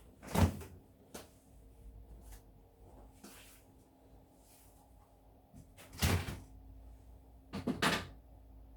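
Sharp wooden-sounding clunks of kitchen things being handled: one about half a second in, another about six seconds in, and a quick double clunk near the end.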